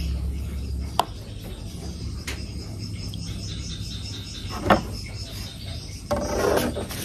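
Insects chirping steadily in a high band. Over it come light knocks of a metal spoon against a small plastic cup, the loudest just before five seconds in. About six seconds in there is a brief splash as the liquid is poured from the cup into a plastic watering can.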